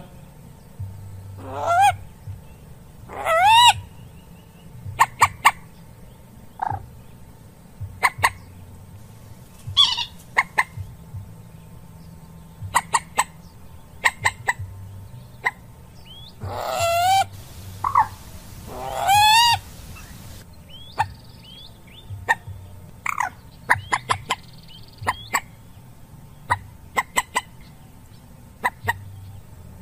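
Common moorhen calling: several loud calls whose pitch wavers up and down, scattered among many short, sharp clicking notes.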